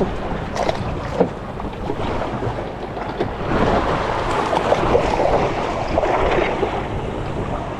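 Wind buffeting the microphone over sea water sloshing and splashing against a small fishing boat's hull, swelling louder in the middle, with a few faint knocks near the start.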